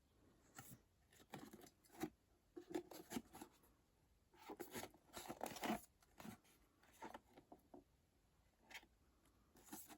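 Faint, scattered handling sounds: light taps, knocks and rustles of objects and packaging being moved about, in small clusters with quiet gaps between.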